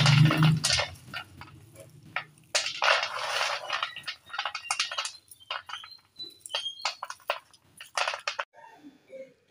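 Roasted peanuts rattling and rustling against a metal plate as a hand scoops and rubs them, in irregular bursts of dry clicks, with a low hum under the first second.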